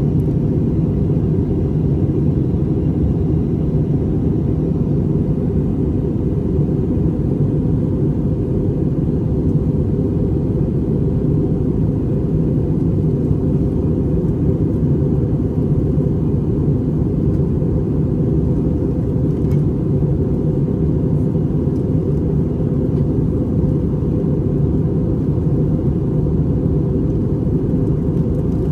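Airbus A320neo cabin noise in flight: a steady, even low rumble of airflow and engines heard from a passenger seat.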